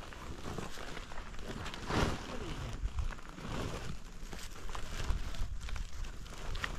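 A large plastic-faced tarp being shaken out and flapped between two people, crinkling and rustling, with a louder whoosh about two seconds in.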